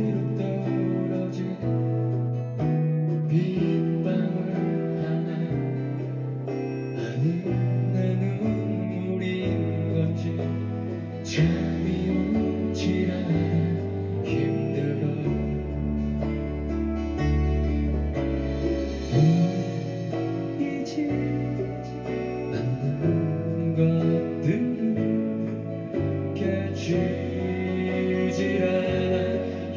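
Live band music from a Korean pop ballad concert recording: guitar and bass with keyboards, and a sung vocal line.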